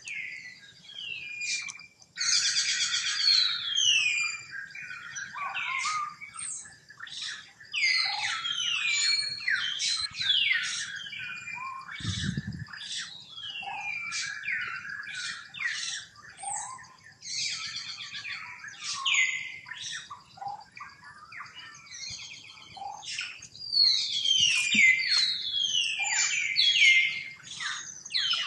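Infant long-tailed macaques screaming: shrill squeals that fall in pitch, repeated over and over, some short and some drawn out. They are the distress cries of babies being roughed up by a bigger youngster.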